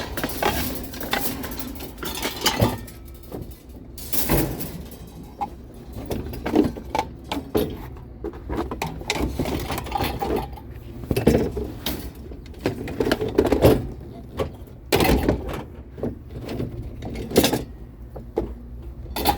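Scrap items being shifted and rearranged in a vehicle's cargo space: ongoing rustling and clattering with several sharp knocks and thumps, the loudest about four seconds in and twice near the end.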